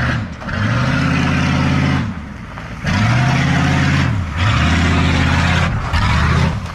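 A truck engine revved hard over and over: about four times the pitch climbs, holds for a second or so with a loud rushing exhaust noise, then drops away.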